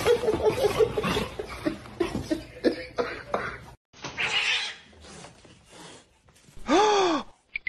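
A dog's short whiny notes mixed with scuffling. After a break, a cat meows once near the end, a single meow that rises and then falls in pitch, the loudest sound here.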